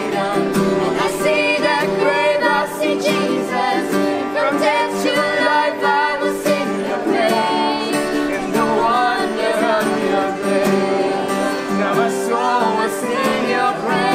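Acoustic guitar strummed while a man and two women sing together.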